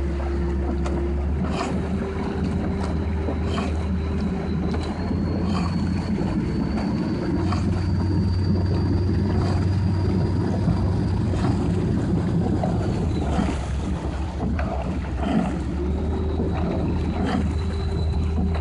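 Small outboard motor running steadily, its high whine rising a little about five seconds in and falling back about thirteen seconds in, over the wash of water.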